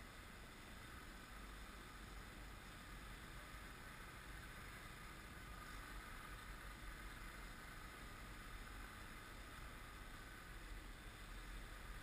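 Near silence: faint, steady outdoor background hiss and low rumble, with no distinct sounds.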